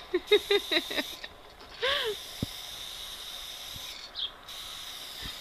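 Aerosol spray-paint can hissing in about three spurts with short pauses as letters are sprayed onto a wall. There are short vocal sounds in the first second and again about two seconds in.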